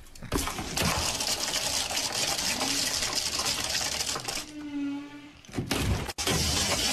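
Fast, dense clattering rattle of a squirrel's hoard of nuts shifting and spilling inside an opened wall cavity. It breaks off about four and a half seconds in, and a short low hum follows before the sound cuts off sharply just after six seconds.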